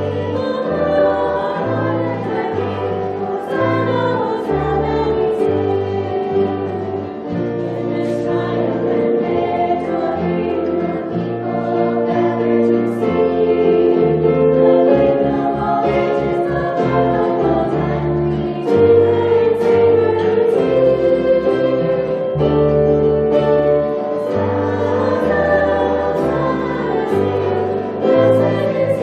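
A choir singing a hymn with instrumental accompaniment, over held bass notes that change every second or so.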